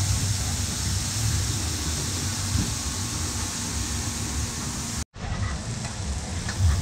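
Long sausages and burger patties sizzling on a hot flat-top griddle: a steady hiss over a low rumble, breaking off for an instant about five seconds in.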